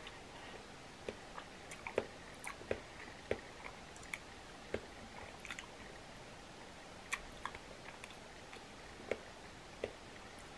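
A person eating seafood boil up close: chewing, with irregular short wet smacks and clicks from the mouth and from licking sauce off her fingers, over a quiet room.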